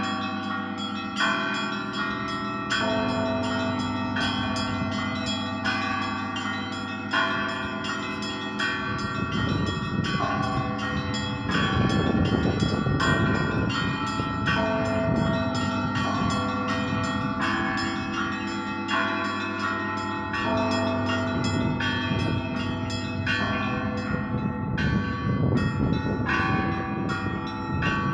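Russian Orthodox monastery bells rung together in a continuous peal: small bells struck rapidly over the sustained ring of the larger bells. The peal grows fuller and louder around the middle.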